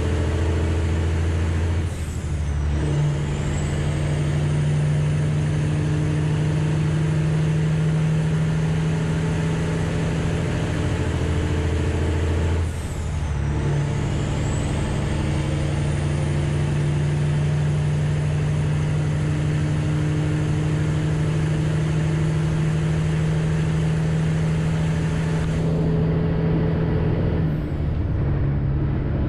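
Freightliner Classic XL semi truck with straight pipes running, its exhaust a loud, steady drone. The drone breaks briefly twice and comes back at a new pitch, about two seconds in and again about thirteen seconds in.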